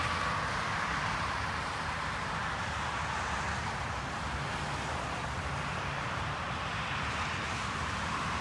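Steady rushing of water from a small creek cascade, an even hiss with no breaks, with some low wind rumble on a cell phone's microphone.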